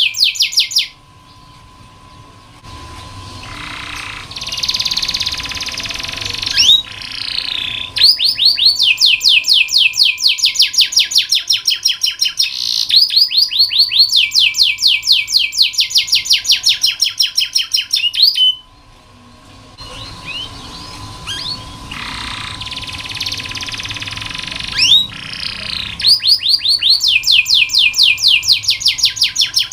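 Domestic canary singing long rolled trills of rapid, evenly repeated falling notes, about six a second, broken by softer, quieter phrases.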